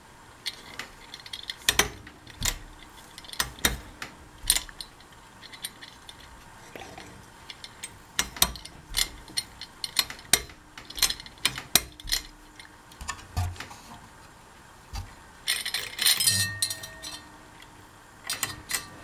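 Irregular light metallic clinks and clicks, with a short denser rattle near the end.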